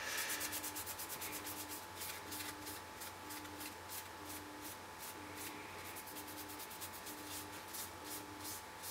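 Toilet paper scrubbed briskly back and forth over a small etched copper circuit board, several quick rubbing strokes a second, most vigorous in the first second. This is the toner mask being wiped off after etching.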